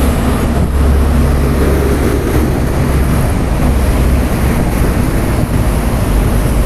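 Loud, steady road-traffic noise with a deep low rumble from heavy vehicles passing on a busy toll road.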